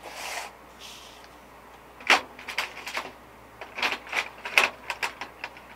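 Small objects handled on a workbench: a soft rustle at first, then a run of sharp clicks and light knocks, sparse and then quicker near the end.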